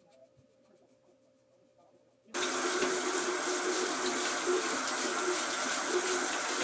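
Bathroom faucet running into a sink: a steady rush of water that starts suddenly a little over two seconds in, after a near-quiet stretch.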